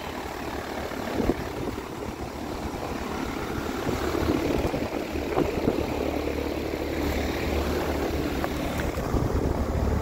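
Bryant Legacy Line 214DNA heat pump outdoor unit running in dry defrost: a steady low compressor hum under a rushing noise, growing gradually louder from about four seconds in.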